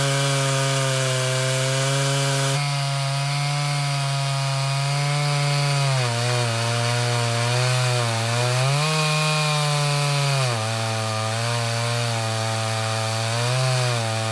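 Vintage Stihl 056 two-stroke chainsaw on an Alaskan chainsaw mill, ripping lengthwise along a chestnut log. The engine runs loud and steady under load, its note sagging and picking up again a few times as the load on the bar changes.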